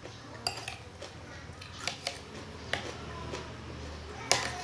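Metal spoon clinking and scraping against a ceramic plate as food is scooped up: several short sharp clinks, the loudest near the end.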